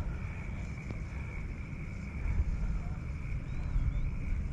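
Wind buffeting the camera microphone: a steady, uneven low rumble.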